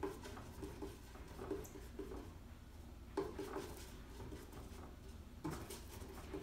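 Oil paint being mixed on a palette: a few short taps and scrapes of the brush against the palette, the loudest about three seconds in and again about five and a half seconds in.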